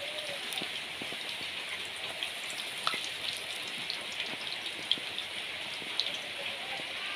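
Battered eggplant slices deep-frying in hot oil in a karahi: a steady sizzle with scattered crackles and a few sharper pops or clicks.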